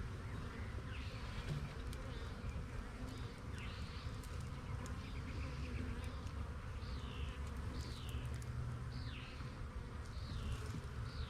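A honeybee colony buzzing as a steady, low hum. Short, high, falling chirps repeat about once a second over it.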